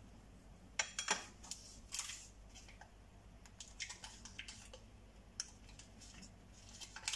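Light clicks and taps of kitchen utensils against a plate and mixing bowl, scattered irregularly about a second apart, over a faint steady low hum.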